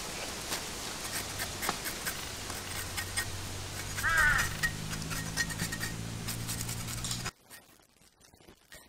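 Scattered clicks and scrapes of a cleaver working on a snake. About four seconds in, a short bird call is the loudest sound. After about seven seconds the steady background cuts off, leaving only faint knife clicks.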